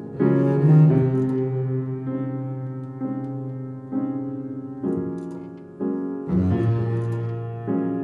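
Jazz trio music: a double bass played with a bow holds long low notes, while a piano strikes chords about once a second that ring and fade.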